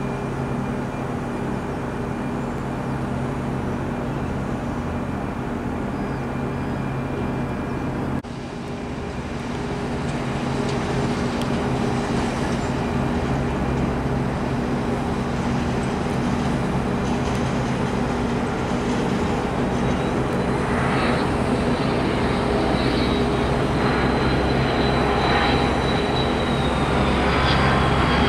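McDonnell Douglas MD-82 jetliner on final approach, its two rear-mounted Pratt & Whitney JT8D turbofans running steadily and growing louder as it nears. In the last several seconds a high turbine whine comes up and slowly falls in pitch as the jet comes in low over the runway.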